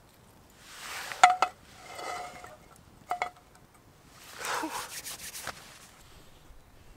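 Steel frying pan clinking against a small metal wood-burning camp stove: a few sharp metallic clinks with a brief ring about a second in, and another about three seconds in. Between them comes rustling as sticks are pushed into the stove's fire.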